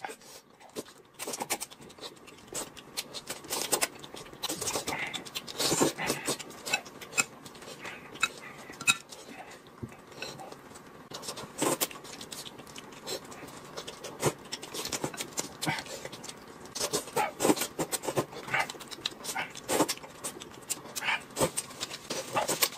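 Close-up eating sounds: noodles slurped and food chewed, with chopsticks clicking against bowls, in many short irregular sounds.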